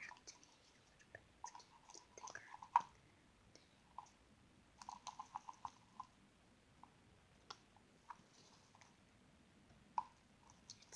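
Quiet, irregular small clicks and taps from hands working with slime, with a quick run of about eight clicks about five seconds in.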